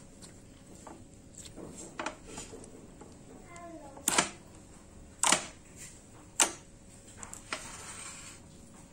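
Thick glossy slime being squeezed and kneaded by hand in a glass container, giving wet pops and clicks as air pockets burst; the three loudest pops come about four, five and six and a half seconds in, with a short crackle near the end.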